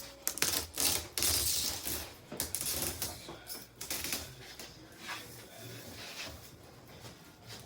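Packaging being handled and pulled off a new washing machine: a busy run of crackles, rustles and small knocks, thickest in the first few seconds and thinning out after that.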